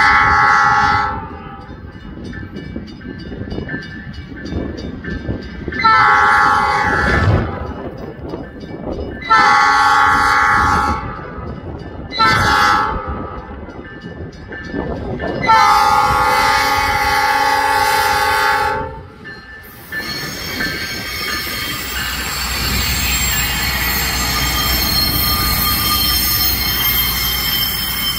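Budd RDC rail diesel car's roof-mounted multi-chime horn sounding for a grade crossing: a blast trailing off about a second in, then two long blasts, a short one and a long one, the long-long-short-long crossing signal, over a faint regular ticking of the crossing bell. From about 20 s the car passes close by, its underfloor diesel engines and wheels rumbling and growing louder.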